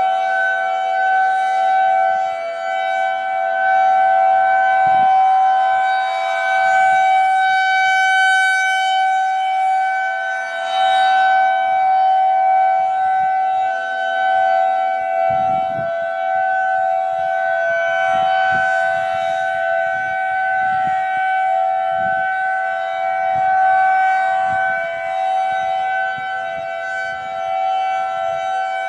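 Federal Signal 2001-SRN dual-tone rotating civil defense siren sounding a steady tone, the Alert signal of a warning-siren test. Its pitch holds level while its loudness swells and fades slightly.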